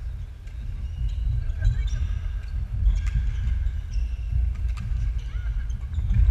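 Badminton rally on a wooden sports-hall floor: sharp cracks of rackets striking the shuttlecock, short squeaks of court shoes and footfalls, over a low rumble from the hall.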